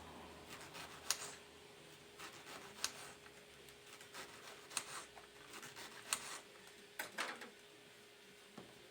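Knife slicing an onion on a cutting board: sharp, irregular taps of the blade on the board, roughly one every one to two seconds, with a few quick ones together near the end. A faint steady hum runs underneath.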